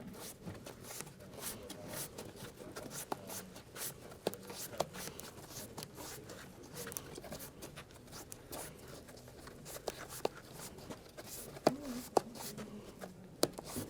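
A bicycle tyre's rubber bead being pushed onto the wheel rim by hand: continual scratchy rubbing and scraping with scattered sharp clicks, the loudest ones near the end.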